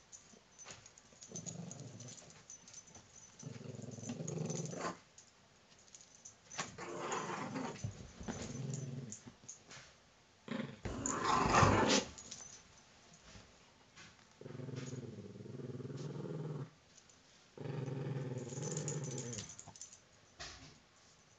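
Small puppy growling in about six bouts of a second or two each, the loudest about halfway through.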